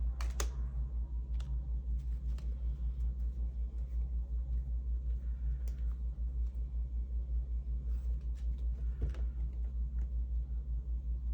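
Steady low hum that pulses about four or five times a second, from an unseen machine such as a fan or an appliance. Over it come a few soft clicks of tarot cards being handled, the clearest right at the start.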